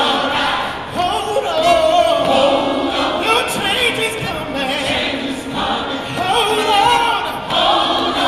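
Gospel choir singing live with instrumental backing, voices gliding up and down in runs.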